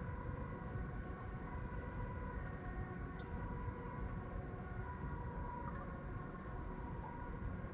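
Steady low rumble of a city at night, with a faint steady whine of a few pitches held level over it.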